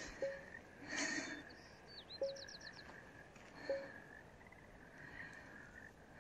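Frogs croaking faintly: a few separate short calls a second or two apart over a steady thin background tone.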